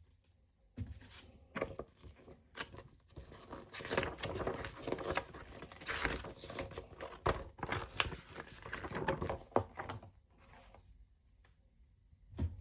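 Hands handling objects: irregular rustling, crinkling and clicks for most of the stretch, then a pause and a single sharp knock near the end.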